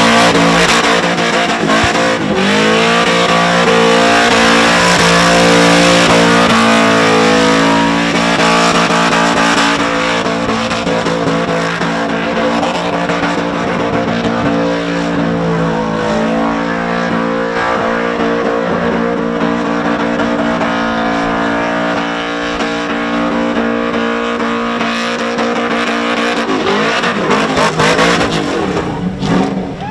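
Supercharged Holden Commodore engine held at high revs through a burnout, the rear tyres spinning and squealing on the pad. The revs stay mostly steady, dipping and climbing a couple of times early on and dropping near the end.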